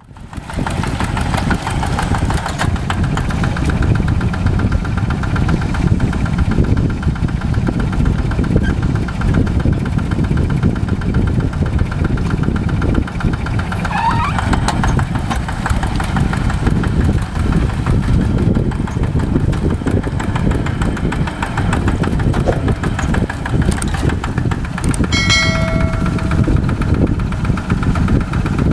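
Farm tractor's diesel engine running steadily, coming in quickly at the start.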